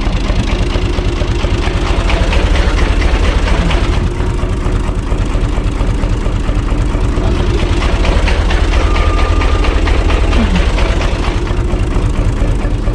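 Diesel engine of a UTB U445 DT tractor running steadily.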